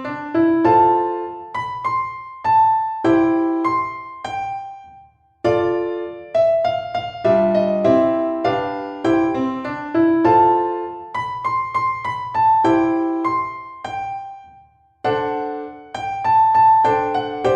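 Background piano music: a gentle melody of struck notes in short phrases, breaking off briefly twice between phrases.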